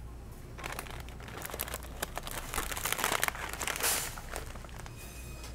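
Plastic snack bag crinkling and rustling as it is handled and pulled off a shelf. It starts about half a second in and is loudest around three to four seconds in.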